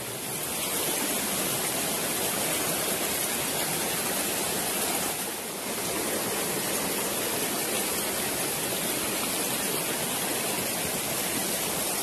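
Forest stream rushing over rocks in small cascades: a steady, even rush of water that dips briefly about five and a half seconds in.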